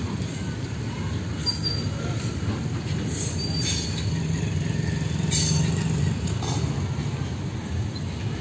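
Freight wagons loaded with steel coils rolling past on the rails: a steady low rumble of wheels on track, swelling slightly about two-thirds of the way through, with a few brief high-pitched metallic squeals.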